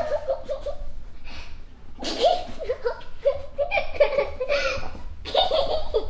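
A young girl laughing and giggling in bursts: a short laugh at the start, then longer runs of giggling from about two seconds in, with a brief pause near the end.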